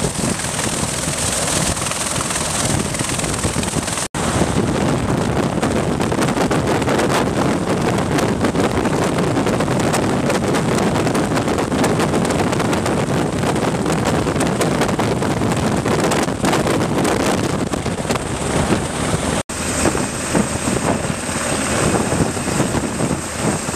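MV-22B Osprey tiltrotor's rotors and turboshaft engines running at full power during takeoff, a loud, dense, rapid chop, mixed with heavy wind noise on the microphone. The sound cuts out for an instant twice.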